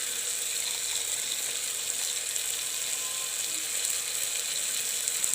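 Onion and tomato masala sizzling steadily in hot mustard oil in a pan.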